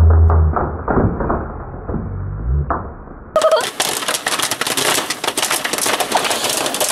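Jiffy Pop popcorn popping inside its foil pan as it is shaken over a gas burner: scattered pops at first, then a dense, rapid crackle from about three and a half seconds in. A low hum stops about half a second in.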